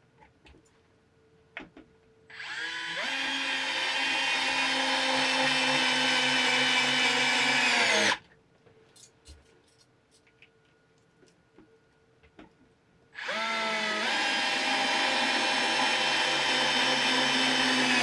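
NoCry cordless electric screwdriver driving 40 mm Torx wood screws into wood: two runs of about six seconds each, starting about two seconds in and about thirteen seconds in. Each time the motor whine rises as it spins up, holds steady, then stops.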